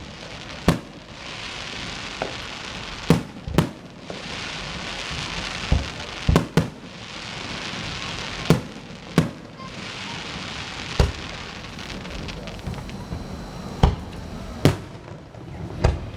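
Fireworks going off: about a dozen sharp bangs at irregular intervals, with a steady crackling hiss between them.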